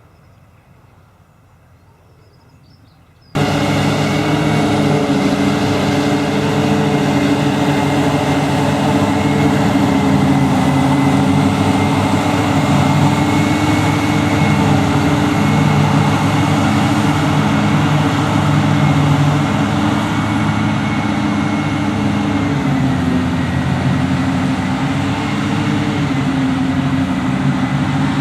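Faint background at first, then a sudden start into the loud, steady running of a heavy farm machine's diesel engine heard close up, with a faint high whine above it. The engine note drops slightly a little after the middle.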